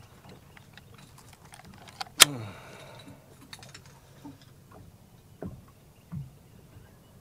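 Small metallic clicks and rattles of a lip-grip fish gripper and hanging scale as they are clamped onto a bass's jaw and lifted to weigh it. About two seconds in there is one sharp click with a brief ring, and later there are a couple of soft knocks.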